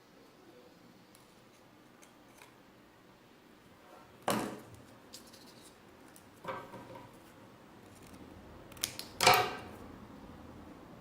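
Scissors snipping paper: three short cuts a couple of seconds apart, the last the loudest, with a few faint handling clicks between.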